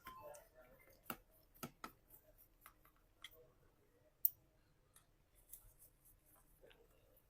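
Scattered small clicks and taps of a screwdriver working the screws that hold a laptop battery, about a dozen short clicks, the sharpest one about four seconds in.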